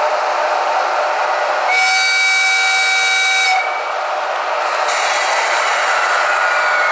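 ESU LokSound 5 sound decoder in a model JNR EF66 electric locomotive playing its locomotive sounds through the model's speaker: a steady running hiss, with a horn blast of about two seconds starting roughly two seconds in. A faint falling whine follows near the end.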